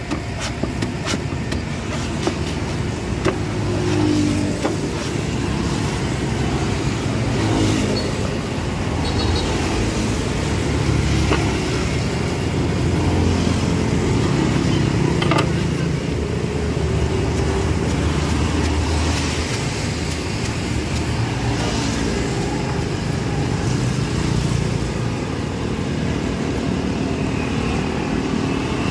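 Street traffic, with motor vehicles passing and running steadily. Several sharp knocks in the first three seconds and a couple more later: a cleaver chopping into coconut husk.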